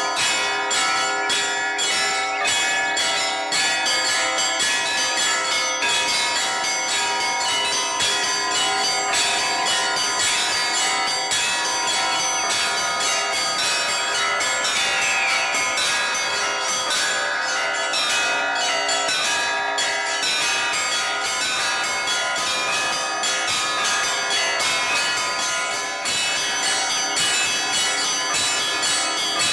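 Orthodox church bells rung in a continuous peal: many bells of different pitches struck in quick succession, ringing over one another without a break.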